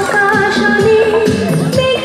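Bengali song playing: a held melody line over a steady drum beat.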